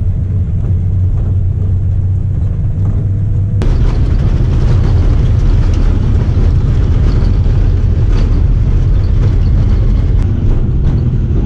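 Steady rumble of a car on the move, road and wind noise heard from inside the car. It jumps louder and fuller about three and a half seconds in.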